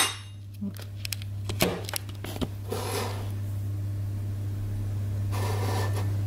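Light taps and knocks as a drinking glass of water is handled on a countertop, with a sharp clink at the start and soft rustling later, over a steady low electrical hum.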